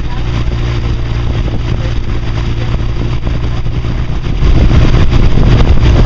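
Motorboat engine running steadily under a rushing hiss, growing louder about four and a half seconds in.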